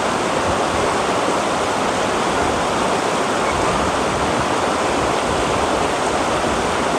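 Shallow rocky river rushing over boulders in white-water rapids: a steady, loud rushing of water.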